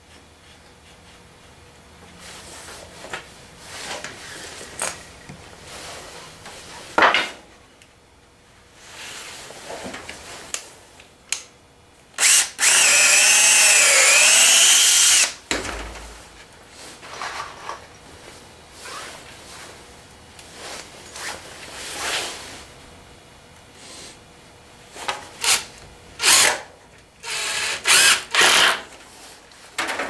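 Cordless drill running for about three seconds near the middle, its whine dipping in pitch and recovering as the bit bites into pine. Short knocks and rattles of handling come before and after, with a cluster of short bursts near the end.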